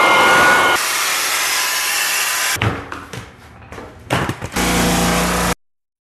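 Short snippets of tool and motor sounds spliced one after another: a whining motor, then a hiss, then scattered knocks and clicks, then a low steady hum, each change abrupt, all cut off suddenly about five and a half seconds in.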